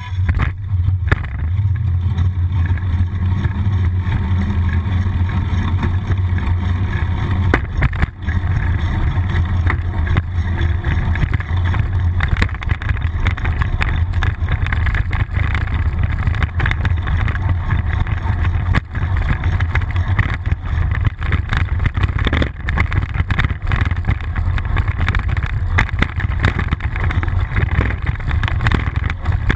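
Steady low rumble of wind buffeting a bicycle-mounted action camera's microphone while riding, with tyre and road noise and a few sharp clicks from the bike jolting over the road.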